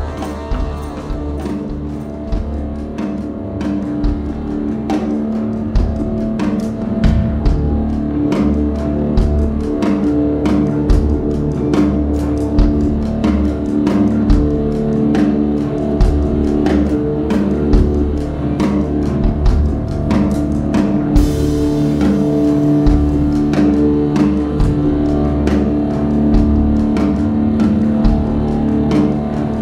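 Live instrumental rock from a trio of drum kit, electric bass and electric guitar: a steady drum beat under held guitar and bass notes.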